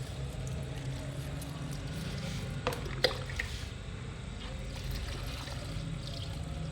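Water trickling, with two sharp clicks about three seconds in.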